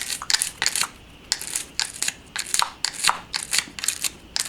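A small brush scrubbing a crusty, dirty battery contact in a remote control, with short scratchy strokes about three times a second. The contact has just been wetted with electronics cleaner.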